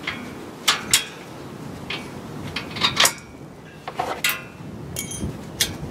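Metal clinks and rattles as the steel hitch-mounted cargo rack's hardware is handled at the trailer hitch receiver: about seven sharp knocks spread over several seconds, a few ringing briefly.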